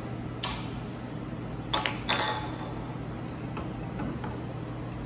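A few light metallic clicks and clinks from a tractor distributor's cap and rotor being unclipped and handled, in the first half; the last clink rings briefly. A steady low hum runs underneath.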